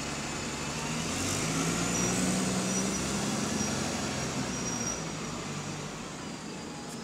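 Double-decker bus's diesel engine pulling away from a stop: the engine note rises and swells over the first few seconds, then fades as the bus draws off, over general street traffic noise.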